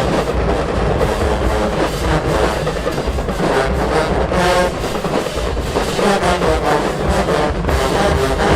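Marching band playing: loud brass over heavy low horns and drums.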